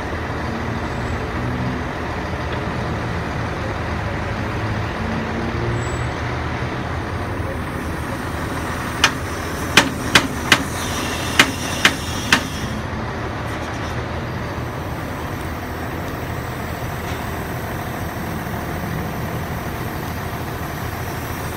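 Steady low rumble of a heavy truck engine running amid road traffic. About nine seconds in comes a quick series of seven sharp clicks or knocks.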